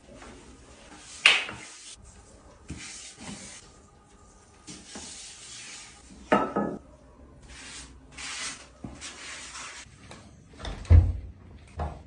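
Gloved hands handling things around a plastic toilet seat: bouts of rustling and rubbing, with sharp knocks about a second in and again about six seconds in, then two heavy thuds and a click near the end.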